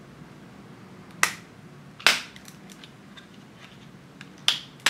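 Plastic clips of a MyPhone SOSPHONE's rugged case snapping loose as the case is pried open by hand: four sharp clicks, two in the first half and two close together near the end, with fainter ticks between.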